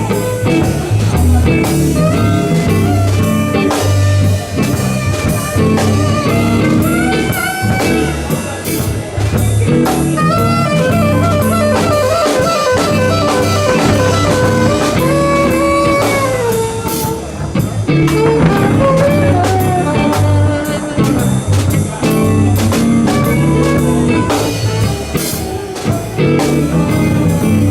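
A live blues band playing an instrumental passage: drum kit, bass and guitar, with a lead melody line wavering and trilling over them in the middle of the passage.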